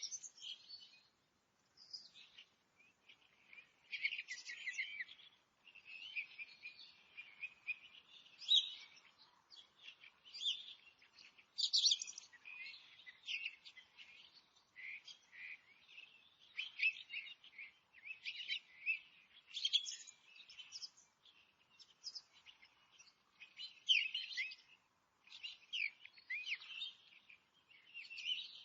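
Several forest songbirds singing and chirping at once, dense overlapping high-pitched phrases with brief gaps.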